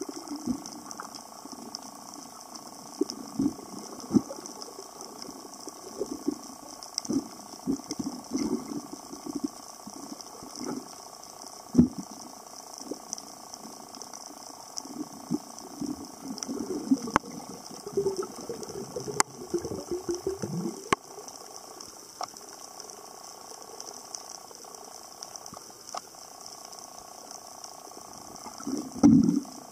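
Underwater sound picked up by a submerged camera: irregular muffled thumps and rumbles of water moving against the housing over a steady hiss, with a few sharp clicks and a loud thump near the end.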